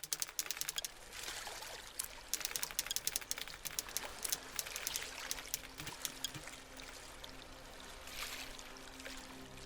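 Running water splashing and trickling, with a dense patter of droplets. Soft music comes in about halfway through.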